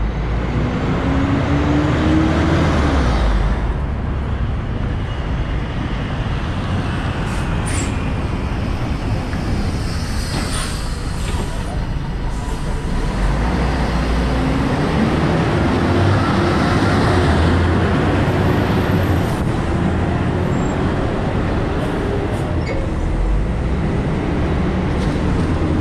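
Articulated diesel city buses at a kerbside stop: one moves off with a rising engine note in the first few seconds, and another pulls in with a hiss of air brakes about ten seconds in, then keeps running steadily while stopped.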